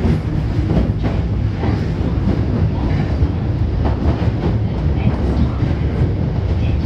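Osaka Metro 22 series subway train running, with the steady rumble of wheels and motors heard from inside the car.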